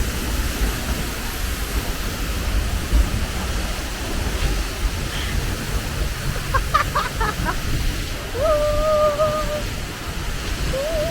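Seljalandsfoss waterfall pouring down close by: a loud, steady rush of falling water with a deep rumble underneath. Past the middle, a person's voice gives a few short sounds and then a held call.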